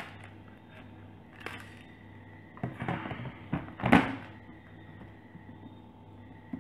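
Handling noise from working on an opened smartphone: a few light clicks and taps, a quick cluster of them about three seconds in, and a louder knock about four seconds in.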